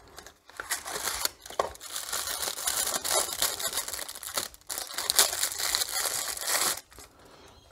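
A small cardboard box of motorcycle brake pads being opened and the pads drawn out of their plastic bag: a run of crinkling and rustling of plastic and card with small clicks, stopping about a second before the end.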